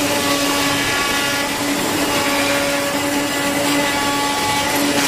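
CNC leather cutting machine running: a steady machine whine over a constant hiss, with the hum dipping briefly now and then.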